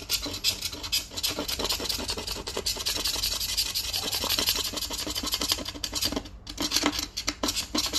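Rapid, continuous scraping of dried paint off a surface, stroke after stroke, stopping briefly about six and a half seconds in.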